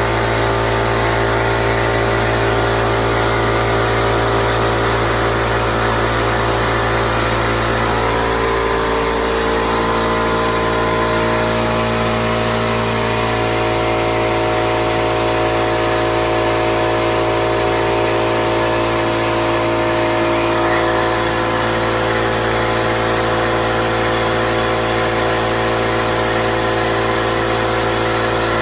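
Hose-fed spray gun hissing as top coat goes onto the cabinets, the hiss stopping three times when the trigger is released, over the steady drone of the motor feeding it air.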